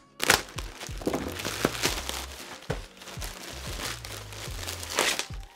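White plastic mailing bag crinkling and rustling as it is handled and pulled open, with sharp crackles, loudest about a third of a second in and again near the end.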